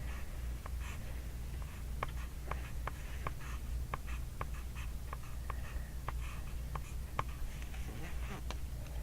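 Pencil writing on paper: a run of short, irregular taps and scratches from the strokes, roughly two a second, over a steady low hum.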